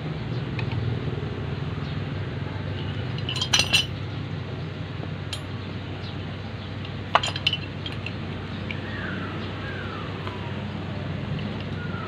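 Steel wrenches clinking as they are handled: a pipe wrench knocking against an adjustable wrench that grips a galvanized pipe fitting. There are two short bursts of metal clinks, about three and a half and seven seconds in, and a single clink between them, over a steady low hum.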